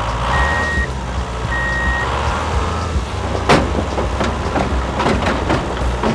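RC truck's sound module playing a steady diesel engine rumble with two reversing beeps in the first two seconds. A sharp knock comes about three and a half seconds in, followed by several lighter clicks.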